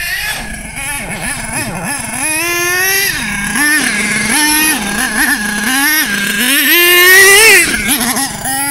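OFNA LX1 RC buggy's small nitro engine revving up and down as the throttle is blipped and held, its pitch climbing and dropping repeatedly, loudest and highest near the end.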